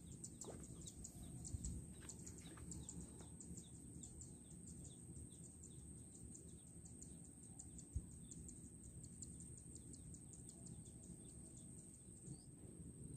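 Near silence: faint outdoor ambience with a fast, steady series of short, high, falling chirps over a thin high-pitched steady tone and a low rumble, with a single soft knock about eight seconds in.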